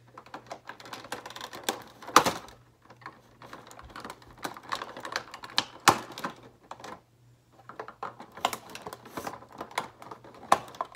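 Irregular sharp clicks, snaps and scrapes of plastic toy packaging being worked loose and cut with a knife to free a figure from its box tray.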